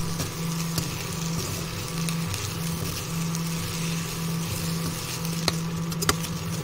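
Chopped okra sizzling as it fries in a non-stick kadhai, stirred with a metal spatula, over a steady low hum from the induction cooktop. The spatula clicks sharply against the pan twice near the end.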